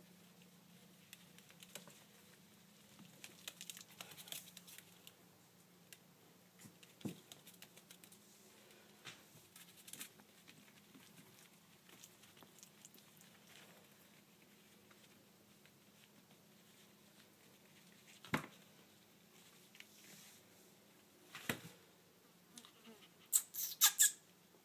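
Golddust Yorkshire terrier puppies scuffling and pawing in a fabric dog bed: soft scattered taps and rustles, a couple of sharper knocks, and a quick cluster of sharp high sounds near the end.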